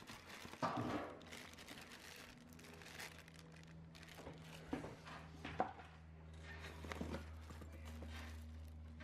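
Thin plastic bag crinkling and rustling as a bagged VGA cable is pulled from a cardboard box and unwrapped, with a few sharper crackles and knocks.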